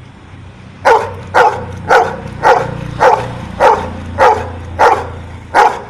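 Golden retriever barking nine times in an even series, about two barks a second, starting about a second in. The barks count out a number on command as a trick.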